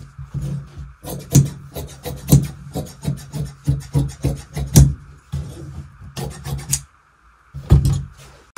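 Scissors cutting through blouse fabric: a run of irregular crunching snips, about two or three a second, with a short pause near the end before a last pair of cuts.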